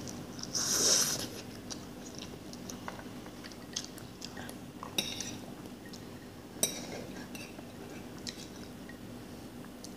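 Noodles slurped about a second in, then chewing, with metal forks clicking and scraping against a plate of spicy ramen; two sharper clicks come about halfway through.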